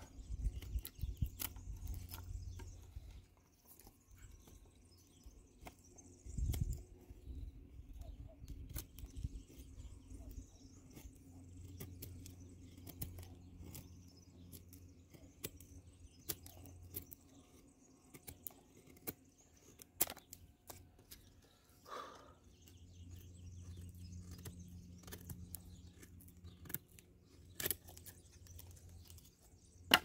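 Scandi-ground knife blade shaving thin curls off a stick to make a feather stick: faint, irregular scraping and clicking strokes against the wood, with a few sharper clicks later on.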